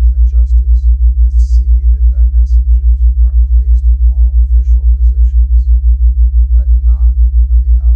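A low, loud tone pulsing evenly about six times a second, a theta-wave brainwave-entrainment tone. A faint subliminal voice murmurs underneath it.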